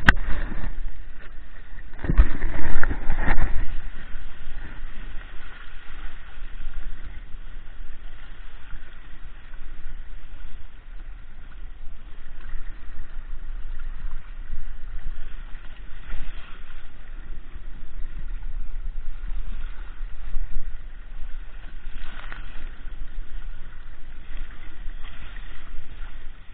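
Water rushing and splashing along the hull of a Hobie Adventure Island sailing kayak under way under sail, over a low rumble of wind on the microphone. There is a louder surge of splashing about two seconds in.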